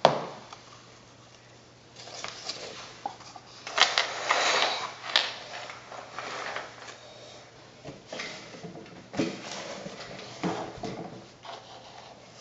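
Irregular rustling and knocking handling noises in a small room: a sharp click at the start, a louder stretch of rustling about four seconds in, and further scattered rustles and knocks.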